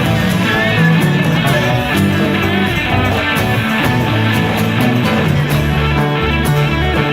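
Instrumental folk-rock passage with guitars playing and no singing.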